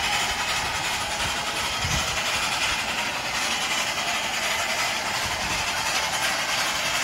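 Durango & Silverton No. 473, a K-28 2-8-2 steam locomotive, letting off a steady hiss of steam while it stands, with a low uneven rumble underneath.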